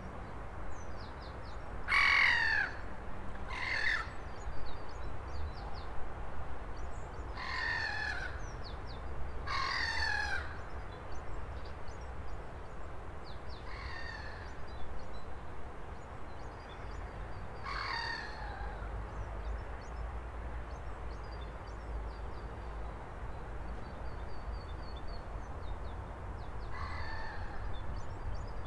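Large birds calling: seven single calls spread out, each about half a second and dropping in pitch, over a steady low rumble and faint high chirps of small birds.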